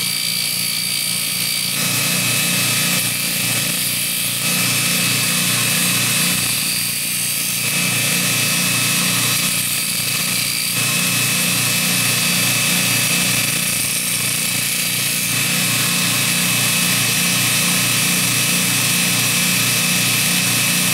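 Half-horsepower Baldor bench grinder running a 100-grit zirconia belt on a 10-inch expander wheel, with a steady motor hum. About five times, for a second or so each, a hiss of steel grinding comes in as a steel-handled fuller is pressed to the belt, grinding the mushroomed, curled-over edge left by off-centre hammer blows back into shape cold.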